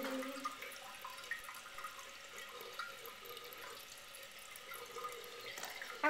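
Eljer toilet tank refilling through its fill valve: a steady, faint hiss of water running into the tank. The refill is slow.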